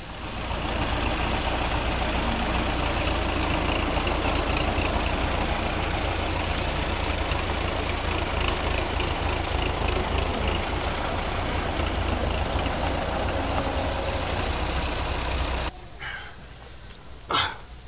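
Backhoe excavator's diesel engine running steadily, cutting off abruptly near the end. A single sharp metallic clink follows.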